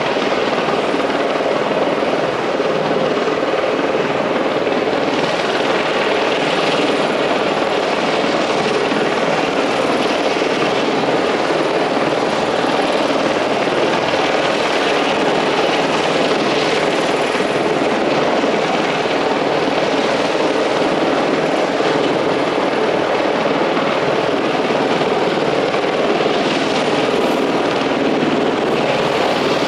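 Helicopter flying close by, its engine and rotors making a loud, steady drone that does not break or fade.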